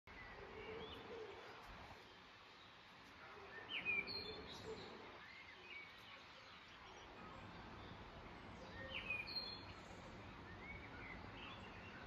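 Evening birdsong from songbirds in the trees: scattered chirps and short whistled phrases over a faint steady hiss, with one bird singing the same short phrase twice, about four and nine seconds in.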